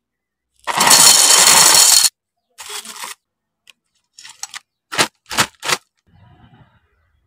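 Snack-cooking sounds in short, abruptly cut bursts: a loud hiss lasting about a second and a half, then a run of sharp cracks, the loudest three about a third of a second apart.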